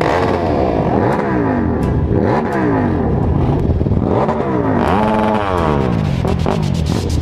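Motorcycle engines, dirt bikes among them, revved again and again at a standstill: each blip of the throttle rises and falls in pitch, about one a second, sometimes overlapping.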